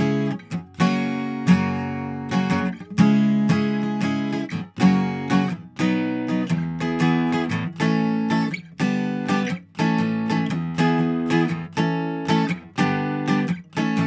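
Acoustic guitar strumming a steady rhythm of chords, played back as a dry recording with no processing on it.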